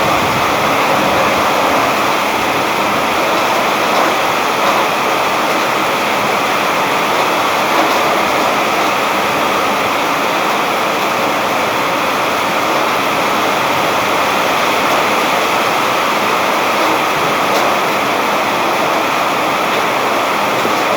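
Heavy rain falling steadily, a loud, even hiss of many drops.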